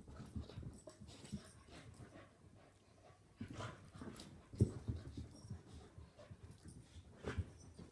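Two wheaten terriers, an adult and a puppy, play-fighting: an uneven scuffle of paws and bodies bumping on carpet, mixed with short dog noises. The loudest knock comes a little past halfway.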